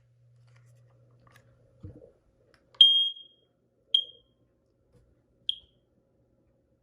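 FireX ADC smoke alarm's piezo sounder giving three short, cut-off chirps at one high pitch, each briefer than the last, a second or more apart, after a soft knock about two seconds in. The alarm is behaving faultily and not sounding its full alarm.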